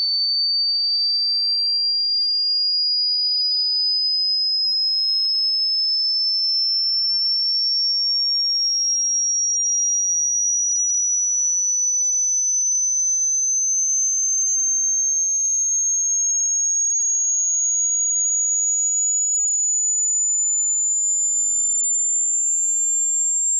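A single high-pitched electronic sine tone, gliding slowly and steadily upward in pitch at a constant loudness.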